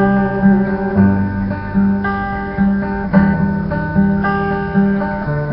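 Acoustic guitar strumming chords at a steady pace, with a chord change about a second in and another near the end.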